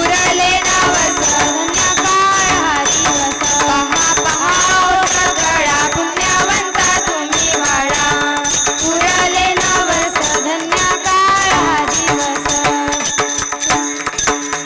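Marathi devotional bhajan: girls' voices singing a melodic line over fast, steady jingling percussion like small hand cymbals. The singing stops about twelve seconds in, and the instruments play on with a steady held tone underneath.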